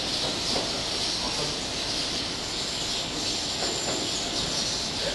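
Yoro Railway train in the distance at a station, heard as a steady hiss over a low, even background noise, with no distinct clatter or horn.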